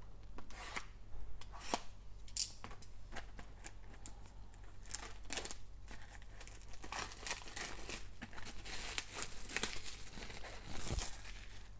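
Plastic shrink wrap being torn and pulled off a sealed trading-card box, crinkling and tearing in irregular crackles that grow busier in the second half.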